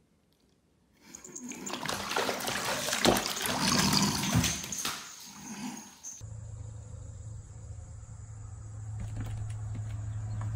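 A cat tumbling into a filled bathtub and thrashing in the water, with several seconds of splashing. A steady low hum follows the splashing.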